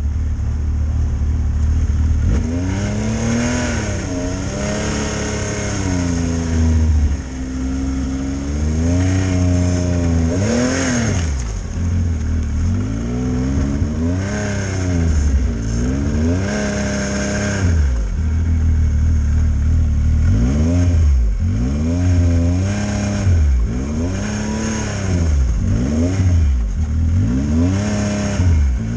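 Yamaha Viper M-TX 141 snowmobile's four-stroke three-cylinder engine, revved up and eased off again and again, every second or two, as it pushes through deep untracked powder.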